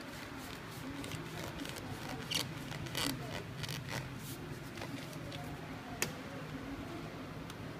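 Hands working on a photocopier fuser unit: scattered light clicks and rubbing of its parts, with a sharper click about six seconds in, over a steady low hum.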